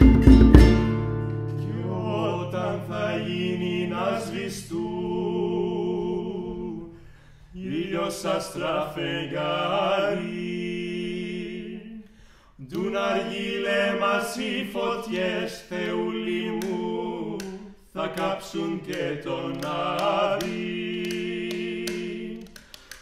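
Two male voices singing a Greek song unaccompanied in close harmony, in long held phrases with short breath pauses between them. About a second in, the last strokes of the frame drum, baglamas and guitar die away.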